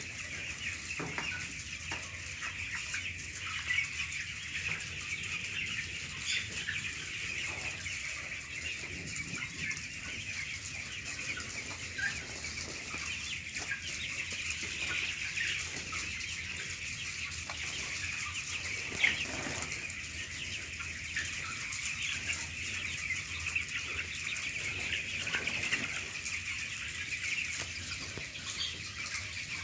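A large flock of farm chickens calling all at once, a dense steady chatter of clucks and cheeps, with one sharper, louder sound about two-thirds of the way through.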